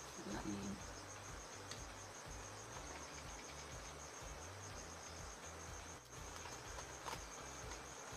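Faint, steady high-pitched insect trill, with an uneven low hum underneath and two light clicks, one about two seconds in and one about seven seconds in.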